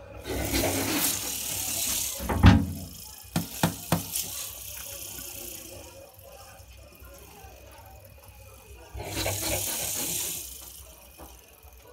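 Porcupines' quills rustling and rattling against each other as the animals jostle, in two stretches of about two seconds each, with a few sharp knocks in between, the loudest about two and a half seconds in.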